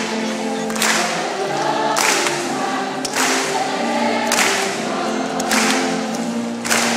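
Many voices singing together to music, holding long notes, with a noisy crash-like hit about every second and a quarter keeping the beat.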